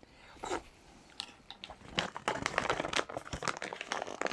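Freeze-dried meal pouch crinkling and rustling as it is handled and folded in the hands, with a dense run of crackles from about two seconds in.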